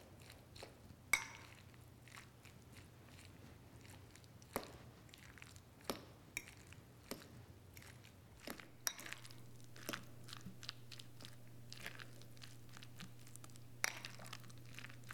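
A metal utensil stirring and mashing chunky guacamole in a glass bowl. Soft squishing is broken by scattered, irregular light clicks of the utensil against the glass.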